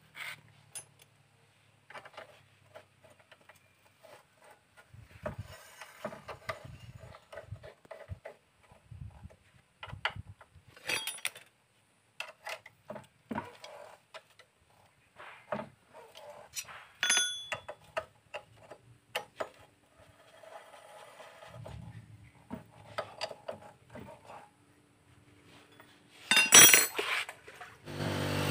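Scattered metal clinks, clicks and scrapes of a socket wrench working the caliper bolts of a motorcycle's front disc brake as it is reassembled. Near the end there is a louder, longer burst of noise.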